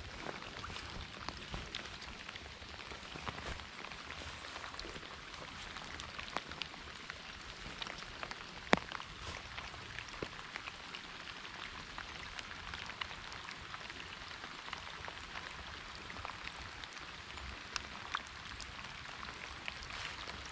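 Steady light rain falling on the creek water, a continuous patter of many small drop ticks. One sharper click sounds about nine seconds in.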